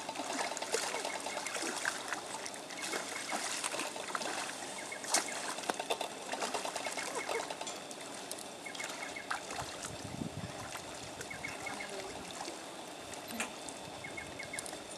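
Shallow pond water trickling and lapping, stirred by a person wading and by whiprays feeding at the surface, with scattered small clicks and splashes.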